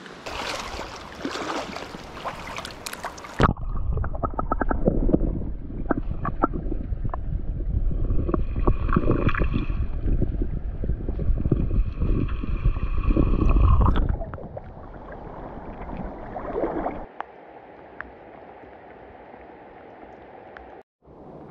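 Water splashing as a pink salmon is let go in the river shallows, then, after a sudden change about three and a half seconds in, the dull, muffled rushing and gurgling of river water heard through an underwater camera, with scattered clicks. It fades to a softer steady hiss of water for the last few seconds.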